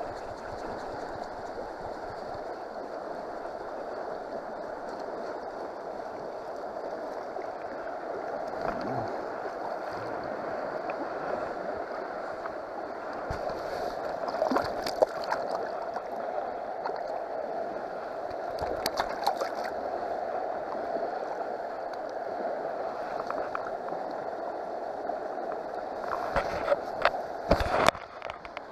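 Shallow river water running and gurgling close to the microphone. A hooked fish splashes at the surface about halfway through, with more splashing near the end as it is handled in the water.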